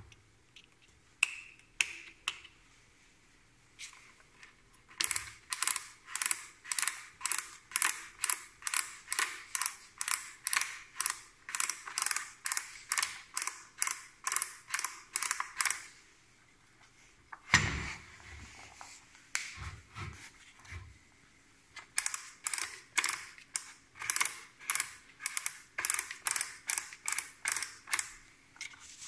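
Rapid, evenly spaced mechanical clicking, about three clicks a second, in two long runs with a single loud knock between them.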